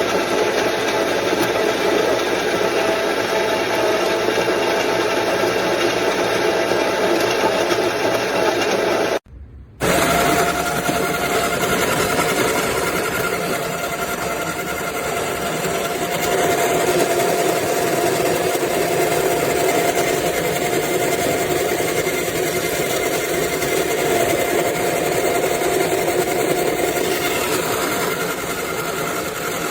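Baratza Encore conical burr coffee grinder's motor running with a steady whine. The sound breaks off briefly about nine seconds in, then goes on. This is a grinder that no longer works as it used to, its sound one the owner calls not good.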